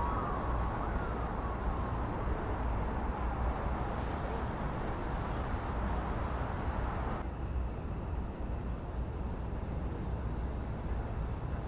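Outdoor city ambience: a steady low traffic rumble with no clear single event. The sound changes abruptly about seven seconds in, after which a faint high-pitched pulsing tone runs along with the rumble.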